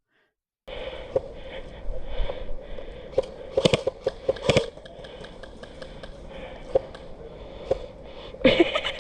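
Scattered sharp knocks and clicks over a steady noisy background with a faint hum, a quick cluster of them a few seconds in and a louder short sound near the end.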